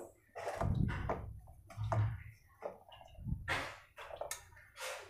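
A hand kneading damp gulab jamun mix with milk in a stainless steel pan: irregular squishing strokes, about half a dozen of them.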